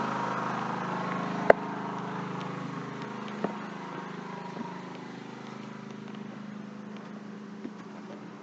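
Ryobi 4000-watt inverter generator running steadily while powering a 15,000 BTU air conditioner, its hum growing gradually fainter. A sharp click comes about a second and a half in, with a few lighter knocks later.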